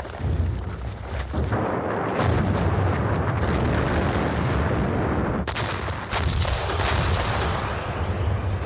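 Battle sound of gunfire and artillery fire: a dense, continuous din of shots with sharp, loud reports about two seconds in and again several times in the second half.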